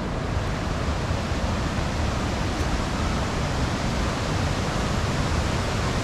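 A rain-swollen stream rushing steadily, a constant loud roar of fast-flowing water with no breaks.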